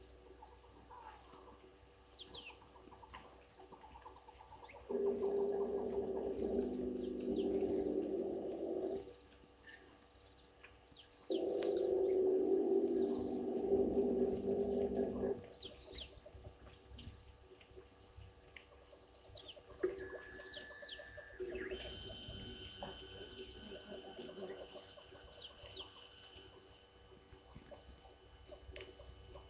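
Steady, high-pitched trilling of crickets and other insects, with short bird chirps scattered through it. Twice, a few seconds apart, a louder, lower calling of several pitches together lasts about four seconds, and near the end thin steady whistle-like tones are held.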